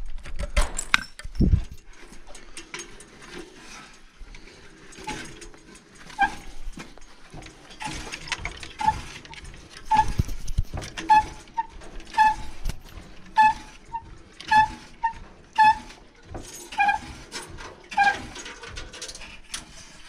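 Wooden hand-cranked windlass of an old stone well squeaking as it turns, paying out its chain to lower the bucket into the well: short pitched squeaks at about one to two a second, after a few clanks and rattles of the chain near the start.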